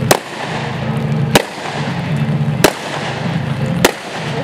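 Gunshots from police assault weapons during a staged armed arrest, four single shots at an even pace about a second and a quarter apart, over a steady low hum.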